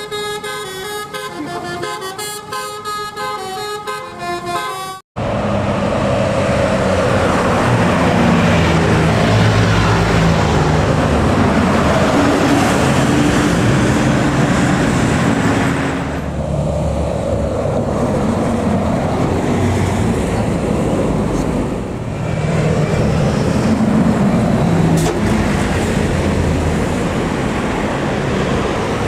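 Intro music for about five seconds, cut off sharply. Then tour buses climbing past close by, their diesel engines running loud under load, with telolet (basuri) multi-tone musical horns sounding held notes several times.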